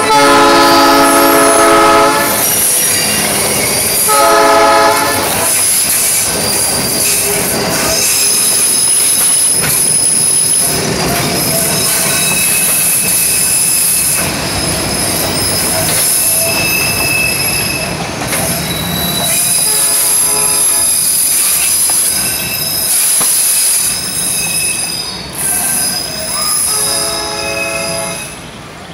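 Alco RS8 diesel locomotive's Nathan AirChime air horn sounding four chorded blasts: a long one at the start, a short one a few seconds later, and two more later on, the first of those fainter. Between the blasts the train's wheels squeal steadily on the rails as it rolls past.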